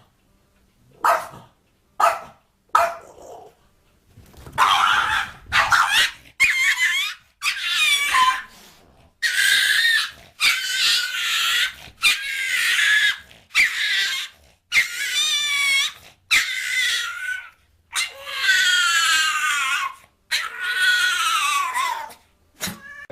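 A dog vocalising: a few short sharp yips, then from about four seconds in a long run of high, wavering whines or howls, roughly one a second.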